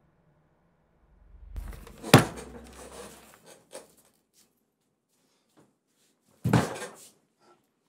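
Knocks and bangs in a small room: a rustling build-up ends in one sharp, loud bang about two seconds in, a few lighter knocks follow, and a second heavy thump comes near the end.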